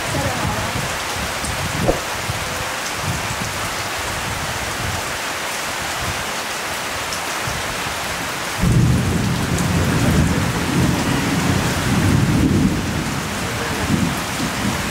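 Steady heavy rain falling, with a single sharp knock about two seconds in and a deep low rumble rising a little past halfway and easing off near the end.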